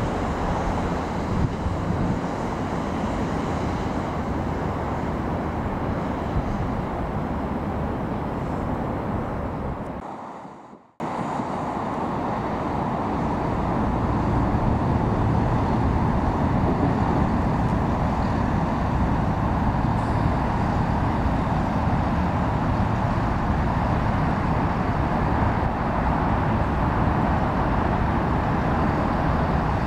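A Great Western Railway Class 165 diesel multiple unit running past close by, a steady rumble that fades out about ten seconds in. After a short silent break, a steady distant rumble of traffic.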